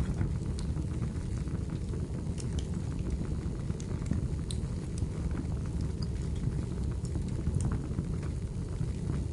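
Wood fire burning in a fireplace: a steady low rumble with scattered, irregular sharp crackles and pops of the burning firewood.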